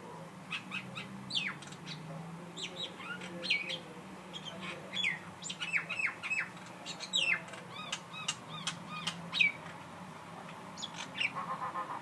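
A bird calling with a rapid, irregular series of short chirps and whistles, each sweeping down in pitch.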